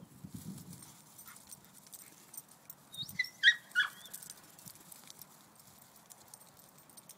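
German shorthaired pointer giving a few short, high yips in quick succession about three to four seconds in, during rough play, with faint rustling of the dogs on the grass.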